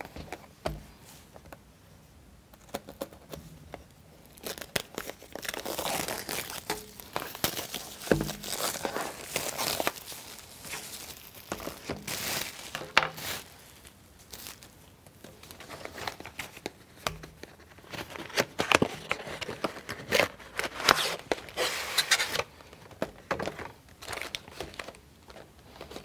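Plastic wrapping film being torn open and crumpled by hand, crinkling in irregular bursts with sharp crackles, around the plywood sheets of a wooden model kit.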